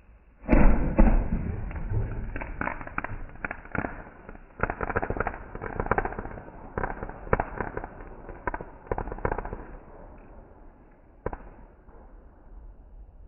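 Fireworks going off: a loud bang about half a second in, then dense crackling and rapid popping with many sharp cracks. The crackle thins out after about ten seconds, with one last crack a second later.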